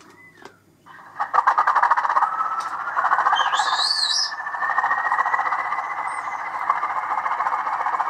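Sound decoder in a Bachmann OO-gauge Class 20 model diesel locomotive playing its engine start-up through the small factory-fitted speaker: the engine sound starts about a second in and runs on steadily, with a whine that rises slowly in pitch. It sounds a little tinny.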